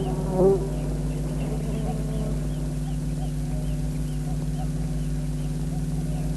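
Steady low hum, with faint short birdlike chirps repeating over it.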